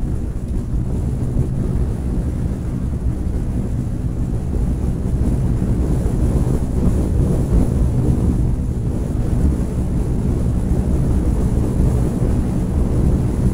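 A car driving at a steady speed: a continuous low rumble of the car and its tyres on the road, with wind buffeting a microphone mounted on the outside of the car.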